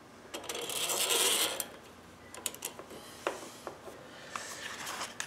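A carburetor gasket being slid along two steel M6 threaded rods and pressed against the carburetor by hand: a scraping rustle lasting about a second, a few light clicks, then fainter rubbing near the end.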